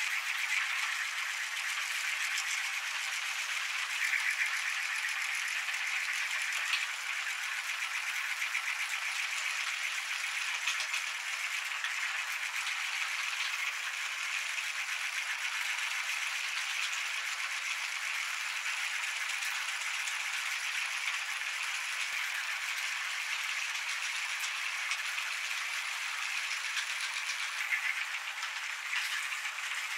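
Meat grinder running, a steady rattle that carries on without pauses.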